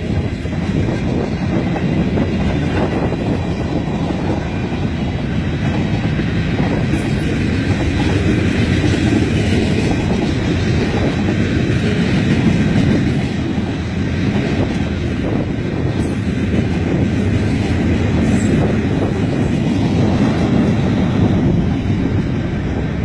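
Long mixed freight train rolling past, its cars' steel wheels running on the rails in a steady, loud noise.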